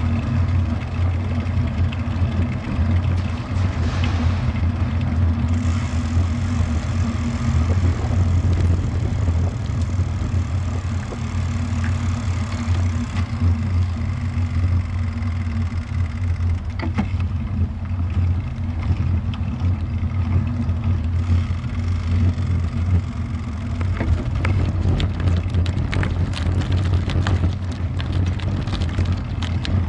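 Riding noise picked up by a bicycle-mounted action camera: steady low wind rumble on the microphone with tyre and road noise. In the last six seconds a dense run of clicks and rattles comes in as the bike rolls over a rougher surface.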